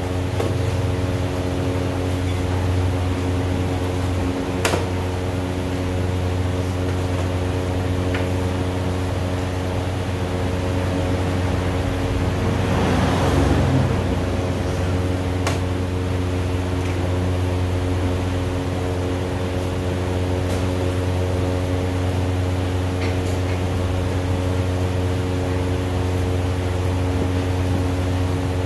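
Steady machine hum, like a fan or air conditioner running, made of several fixed tones. A few sharp clicks come through it, and a brief swell of rushing noise comes about halfway through.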